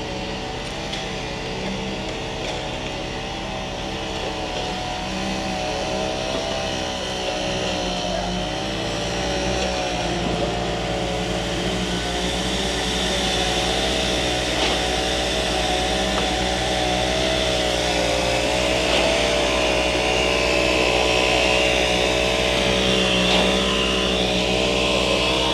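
Engine of a concrete mixer truck running steadily under load as it pours, its pitch wavering slightly and its level slowly rising.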